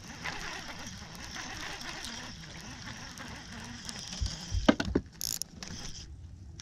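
Baitcasting reel being cranked steadily with a fish on the line, its gears whirring. A few sharp knocks and clicks and a brief high hiss come about four to five seconds in.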